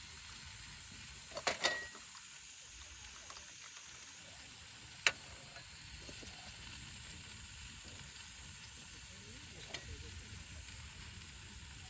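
Food frying in a pan with a steady sizzle. A few sharp clicks, like a utensil tapping the pan, come at about one and a half seconds, at five seconds (the loudest) and near ten seconds.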